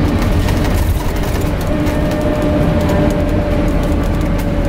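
Cabin noise of a Scania N250UD Enviro 400 MMC double-decker bus on the move: a steady low rumble of engine and road with light clicks and rattles. A constant whine sits over it, sinking slightly near the end, with the air-conditioning unit drowning out much of the engine.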